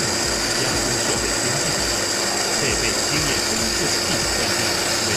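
Pearl 350 CNC machining center's spindle cutting a stone slab under a water coolant spray: a steady high whine over a constant rushing noise.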